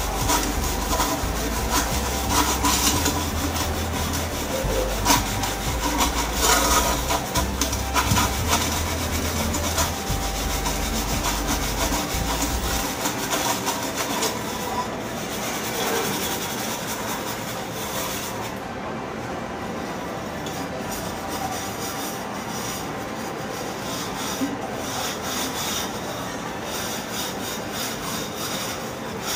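Hands scrubbing a copper bottle with Sabena scouring powder: a continuous gritty rasping rub. A low hum runs under it for about the first thirteen seconds.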